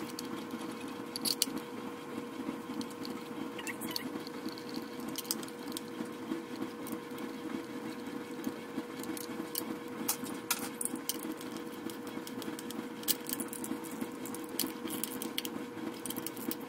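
Scattered light metallic clicks and taps of bolts and a hand wrench as a secondary air injection pump bracket is bolted to an engine block, over a steady background hum.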